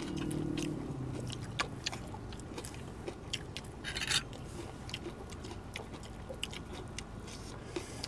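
Close-up eating sounds: chewing with scattered small clicks and scrapes as food is picked apart by hand, and a brief rustling burst about four seconds in.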